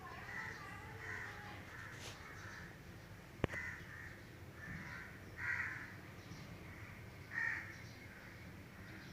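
Birds calling over and over, short calls about every second, with one sharp click about three and a half seconds in.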